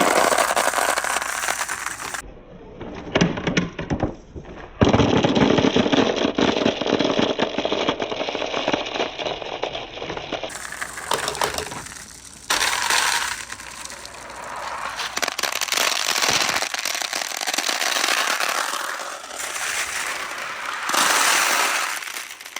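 Many marbles rolling and clattering down wooden marble-run tracks, a dense rattle of clicks and knocks. The sound changes abruptly several times as separate runs are cut together.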